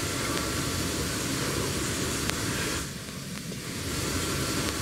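Steady background noise, a low rumble with hiss, that drops briefly about three seconds in.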